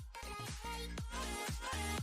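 Background music with an electronic dance beat.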